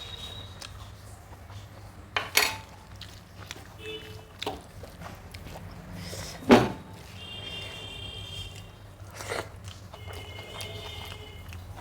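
Eating sounds from a rice meal: a few sharp clatters of food or a hand against a plate, three of them stand out (the loudest about six and a half seconds in), with quieter chewing between them.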